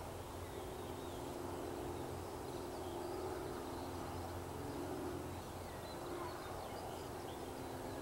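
Open-country ambience: faint, scattered bird chirps over a steady low hum from a distant engine.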